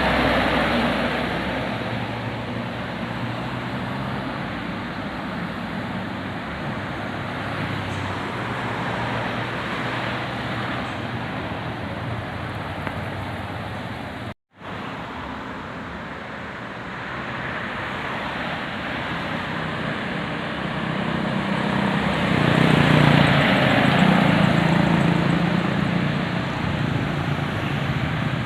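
Roadside traffic noise of vehicles driving past. A heavy engine grows louder and passes about two-thirds of the way through. The sound breaks off for a moment about halfway.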